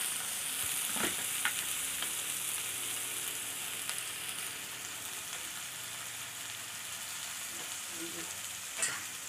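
Roselle (kudrum) leaves with onion and garlic sizzling steadily in hot oil in a wok, with a few light clicks as the steel ladle stirs them.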